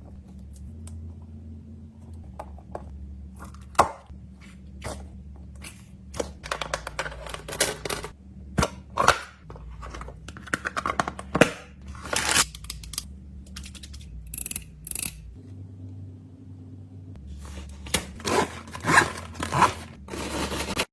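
Fidget toys and plastic packaging being handled and packed into a container: irregular rustling, scraping and tearing with scattered sharp clicks and knocks.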